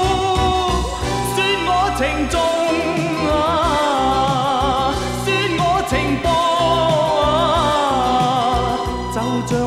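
TV drama theme song, in a stretch between sung lines: a melody sliding and wavering in vibrato over steady sustained backing.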